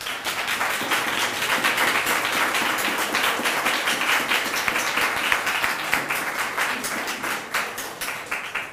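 Audience applauding: many hands clapping at once, starting right away and dying down near the end.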